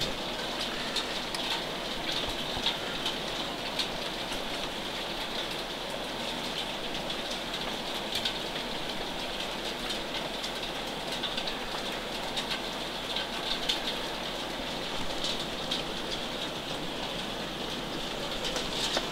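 Heavy rain with hail pouring down in a steady hiss, with frequent sharp clicks and taps of stones and drops striking the deck and nearby surfaces.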